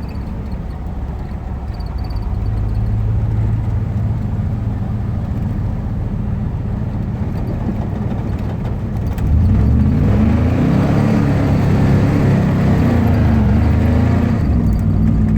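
Truck engine running steadily, then about nine seconds in suddenly louder, its pitch rising and falling as it revs, with a rushing noise over it.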